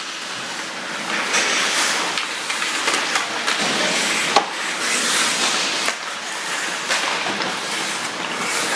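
Ice hockey play: skate blades scraping and carving across the ice, with sticks clattering and one sharp knock about four and a half seconds in.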